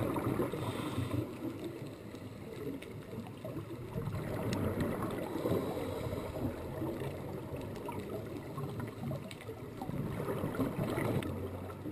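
Underwater ambience heard through a camera housing: a steady, shifting low wash of water noise with a few faint clicks.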